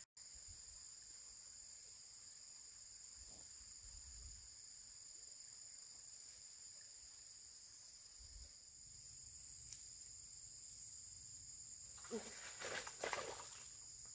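Steady insect chorus: several high-pitched drones held without a break, with a still higher one joining about two-thirds of the way through. A few short knocks come near the end.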